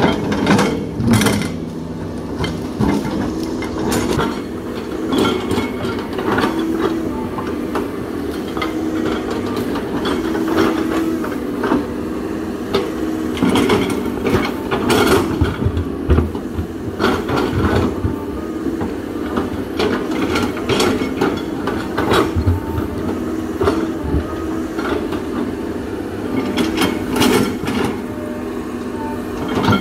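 CAT 320D excavator's six-cylinder diesel engine running steadily under load as it digs, with irregular knocks and clanks from the bucket, linkage and tracks working through soil, stumps and logs.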